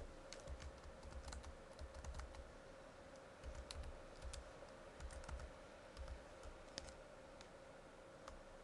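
Faint typing on a computer keyboard: irregular short runs of keystrokes, with brief pauses between the runs.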